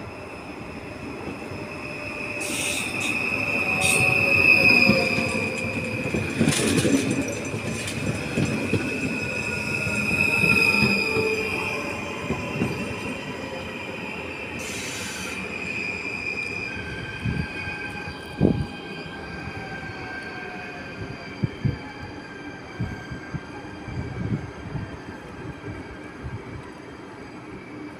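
NS Stadler FLIRT electric sprinter train braking into a station with a steady high-pitched wheel squeal and a falling electric whine as it slows. After it stops, a quieter steady hum with scattered clicks.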